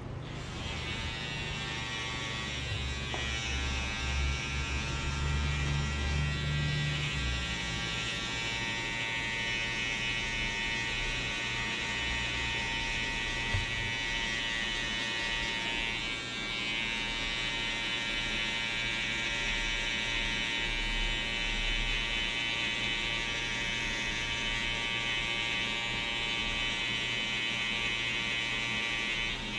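Electric hair clippers switching on and running with a steady buzz through a fade haircut, with a deeper hum under it for the first several seconds.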